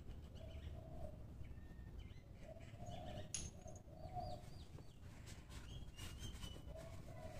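Faint bird calls: short, repeated low calls mixed with small high chirps, over a low background rumble. A single sharp click sounds about three seconds in.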